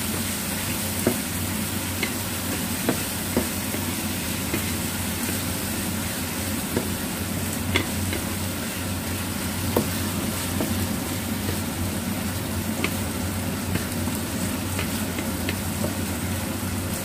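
Chicken pieces sizzling in a nonstick frying pan, cooking without added water, as a wooden spatula stirs them, with scattered light knocks of the spatula against the pan.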